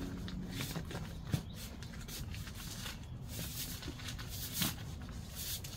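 Deflated Mr. Young air mattress being rolled up by hand, its plastic skin rustling and crinkling irregularly, with one sharp click about a second and a half in.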